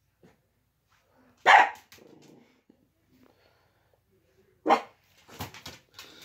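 A pet dog barking twice, sharp and loud, agitated at a computer mouse being pushed toward it, followed by some rustling near the end.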